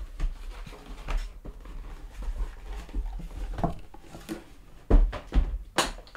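A microphone box and its packaging being handled, making scattered light clicks and knocks, with a few louder thumps about five seconds in.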